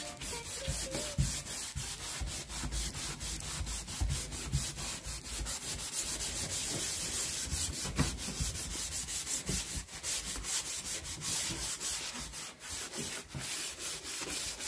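Scouring pad scrubbing a wet aluminium boat floor in rapid, repeated rubbing strokes, lifting grime with aluminium cleaner.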